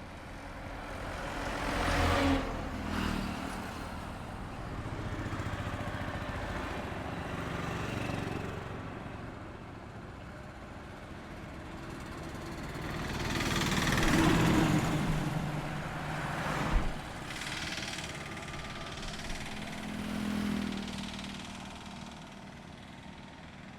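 Highway traffic passing by: one vehicle goes by about two seconds in, a louder one swells and fades past around the middle, followed shortly by a sharp knock, and a smaller pass comes near the end.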